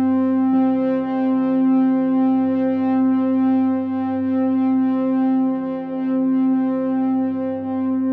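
Background music: a sustained synthesizer chord of steady held tones, with another note entering about half a second in.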